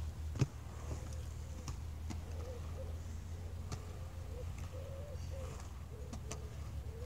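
Inline skate wheels rolling on a concrete skatepark bowl, with a sharp knock about half a second in and scattered clicks, over a steady low rumble. A pigeon coos faintly in the background from about two seconds in.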